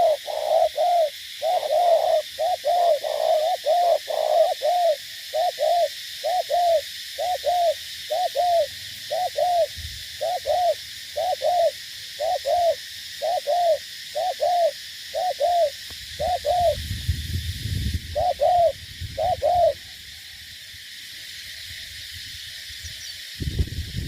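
Spotted dove cooing: a long run of short, evenly repeated coos, close together at first and then spaced out, stopping about 20 seconds in. A steady high hiss of insects runs underneath.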